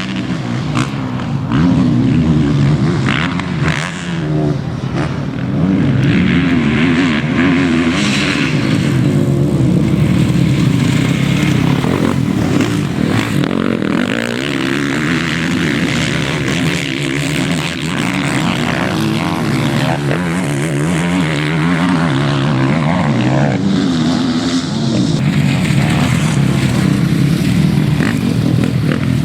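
Several motocross bikes racing at once, their engines revving up and down and overlapping as they rise and fall in pitch.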